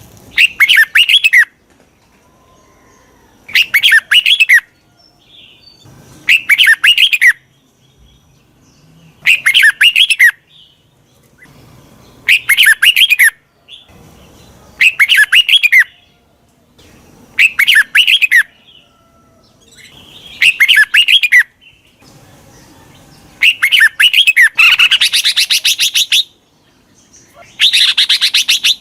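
Red-whiskered bulbul calls used as a lure recording to draw wild bulbuls in: a short, loud, warbling phrase repeated about every two and a half to three seconds, about ten times. A longer, harsher phrase comes near the end.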